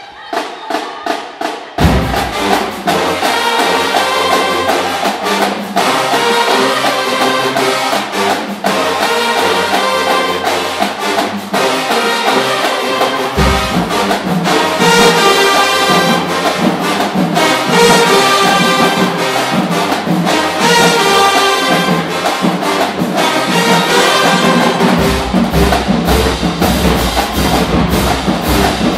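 Marching band of sousaphones, trombones, trumpets and a drumline playing loudly. A few separate drum strikes open it, then the full band comes in about two seconds in. The low end gets heavier about halfway through and again near the end.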